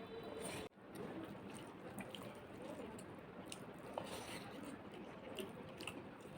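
Close-miked chewing and wet mouth sounds of a person eating spicy mutton curry with rice, with scattered small clicks and squishes.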